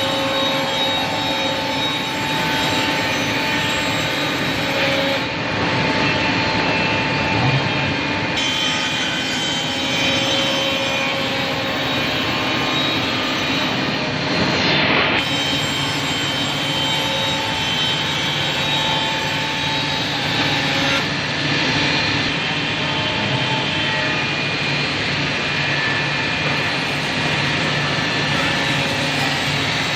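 CNC scroll saw running in a woodworking shop: a loud, steady mechanical whir with a mix of motor tones that shift abruptly several times.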